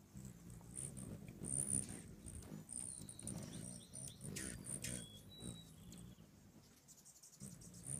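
Hummingbirds squeaking with rapid, high-pitched chips as they chase each other around a feeder, over the low whirring buzz of their wings.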